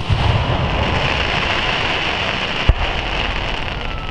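Fireworks display: a dense, rain-like crackle and hiss from burning shells overhead, with one sharp bang about two and a half seconds in.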